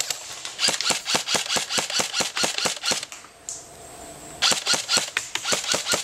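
Airsoft rifle gunfire: a fast run of sharp cracks, several a second, breaking off for about a second just after the three-second mark, then picking up again.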